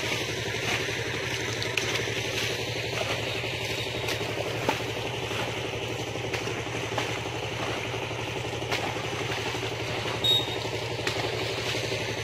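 An engine running steadily, with a few faint clicks and a short knock about ten seconds in.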